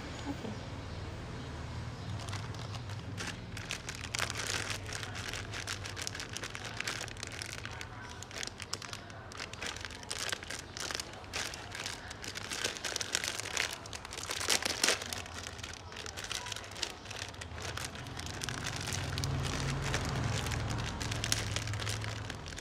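Plastic instant-noodle packets and foil seasoning sachets crinkling and rustling as they are handled and torn open, in irregular crackly bursts. A steady low hum runs underneath.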